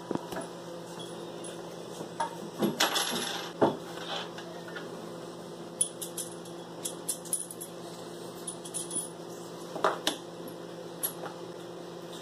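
Small metal screws clinking and rattling as they are handled and passed from hand to hand: irregular light clicks, the loudest few in the first four seconds.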